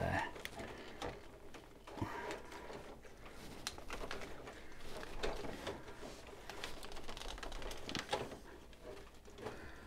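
Plastic parts of a large transforming robot figure clicking and rubbing as they are handled and pressed together, with scattered small clicks as tabs are pushed into place.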